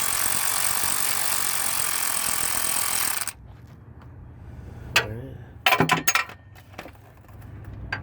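A ratchet wrench runs steadily on the 15 mm nut of the main battery cable terminal on a starter motor and stops abruptly about three seconds in. A few sharp metallic clicks and clinks follow as the tool and nut are handled.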